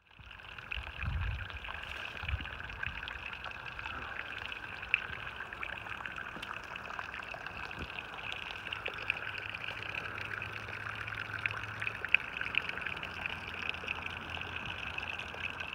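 Water jetting steadily from a high-flowing leak through a crack in a concrete water tank wall, spraying and splashing below.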